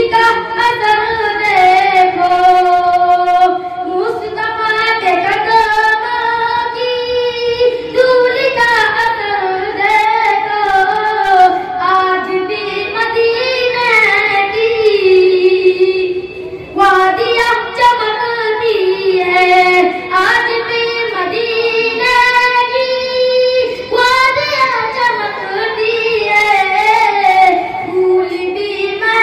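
A boy singing an Urdu devotional nazm solo into a microphone, in phrases of about four seconds with long held, ornamented notes.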